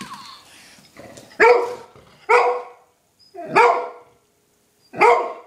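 Golden retriever barking four times, the barks loud and spaced about a second apart.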